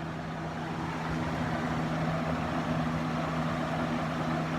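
A motor running with a steady drone and a constant low hum, loud enough to drown out the speaker's voice.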